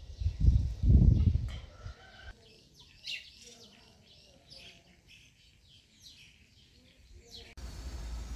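Chickens in a yard with a gusty low rumble for about two seconds. Then many small songbirds chirp and twitter against quiet surroundings. Near the end a steady low rushing noise cuts in abruptly.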